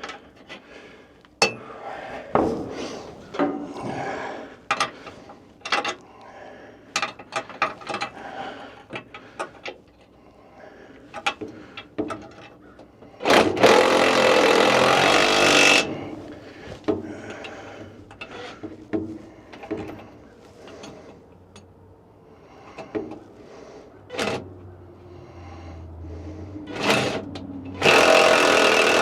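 Scattered clinks and knocks of tools on metal during repair work. A power tool runs twice in steady bursts of about two to three seconds, once near the middle and again near the end.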